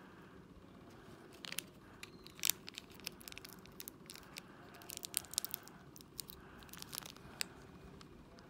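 A small crinkly wrapper handled and pulled at by fingers, giving irregular sharp crackles and tearing sounds, loudest about two and a half seconds in.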